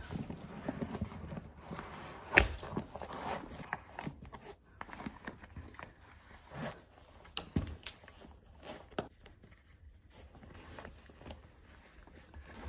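Handling noises of someone moving about a small room: scattered light knocks, clicks and clothing rustle, with one sharper knock about two and a half seconds in.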